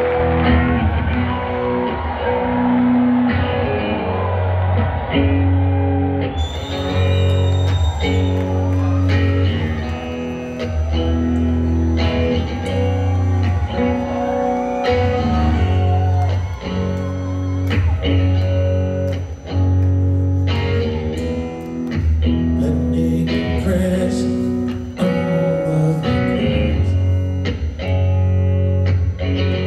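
Rock band playing live, heard from the audience: electric guitar picking a repeating chord pattern over a steady bass line.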